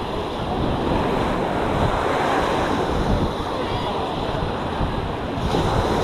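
Small ocean waves breaking and washing up the sand in a steady hiss, with wind buffeting the microphone in a low rumble.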